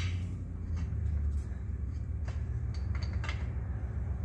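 A few sharp metal clicks and light clinks as pipe plugs are fitted into the steel upper cone of a tubing anchor catcher, over a steady low hum. The clicks come singly, with a cluster about two to three and a half seconds in.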